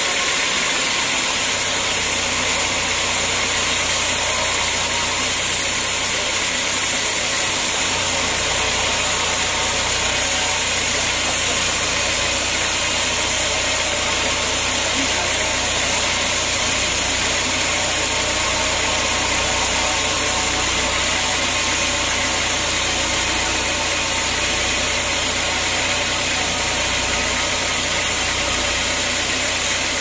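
Band sawmill cutting lengthwise through a heavy, very hard acacia log: a steady, loud machine noise over a low hum. The low hum grows louder about eight seconds in.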